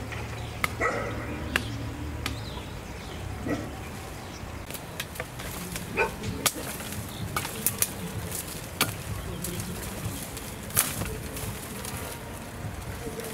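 Scattered short bird and animal calls among many sharp clicks and knocks, over a low steady hum.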